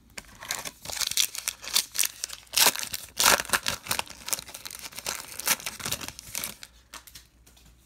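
Baseball card pack wrapper being torn open and crinkled by hand, a run of sharp crackles that is loudest about three seconds in and dies away after about six and a half seconds.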